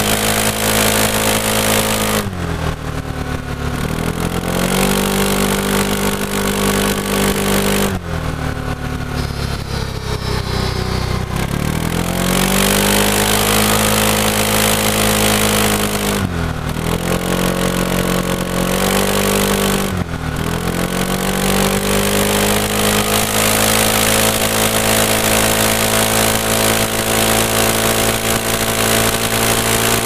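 Kawasaki J300 scooter's single-cylinder four-stroke engine and exhaust while riding, with wind noise. The engine note holds steady, then drops as the throttle closes about four times (around two, eight, sixteen and twenty seconds in), and climbs back each time the rider opens it again.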